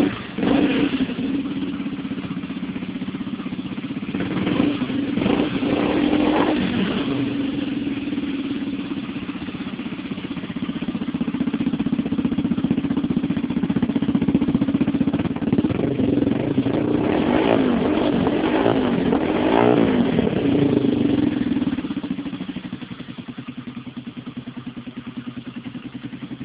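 Yamaha XTZ 125 E's single-cylinder four-stroke engine breathing through a Roncar aluminium aftermarket exhaust, running just after its first cold start of the day. It is revved in short blips a few seconds in and again past the middle, then settles to a lower, steady idle near the end.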